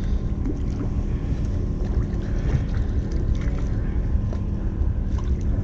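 Wind rumbling on the microphone over a steady low hum, with a few faint light ticks.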